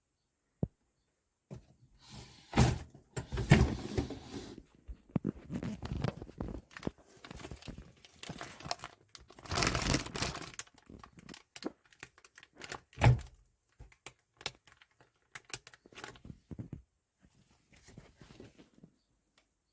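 Irregular handling noises: rustling and crinkling with several knocks and thunks, the loudest knock about thirteen seconds in.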